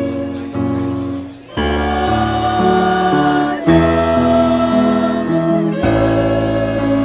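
Choir singing with instrumental accompaniment, in held chords that change every second or so, with a brief dip about one and a half seconds in.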